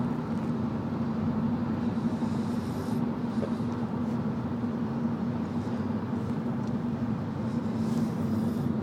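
Steady drone of car cabin noise, with a low hum that holds level and no break.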